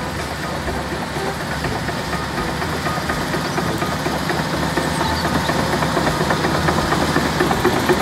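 Komatsu D155AX crawler bulldozer's diesel engine running steadily as it pushes material, with a dense, rapid clatter from the steel tracks.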